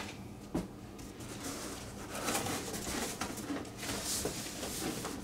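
Soft rustling and handling of packaging as kit parts are unpacked, with a faint click about half a second in, over a steady low hum.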